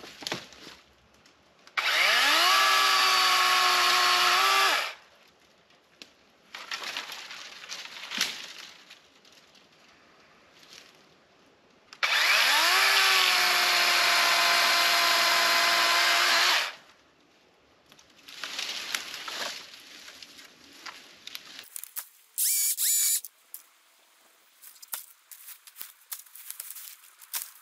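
DeWalt DCCS620 20V cordless chainsaw spinning up with a rising whine and cutting through fallen branches, in two bursts of about three and four and a half seconds. Quieter rustling and cracking of sticks and brush between and after the cuts.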